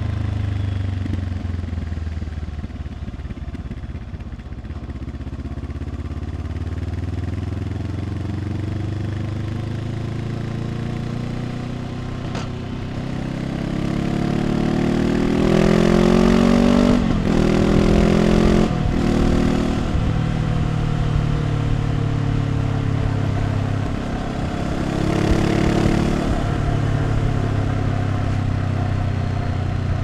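Honda CL500 parallel-twin engine through an aftermarket Arrow exhaust on a city ride. It eases off and runs low at first, then accelerates hard about halfway, with the exhaust note rising in steps broken by two quick upshifts. It drops back and gives a shorter burst of throttle near the end.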